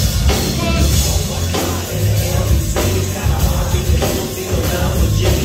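Live band playing loud music with a heavy, steady bass line and drums, heard from the audience in a concert hall.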